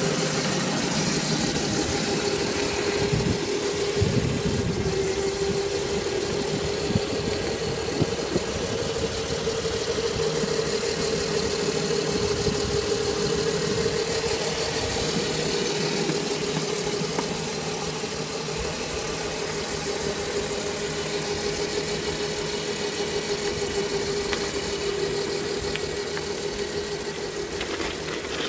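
Electric ride-on vehicles running at full speed, their motors and gearboxes giving a steady high whine over a rushing noise, fading a little in the second half.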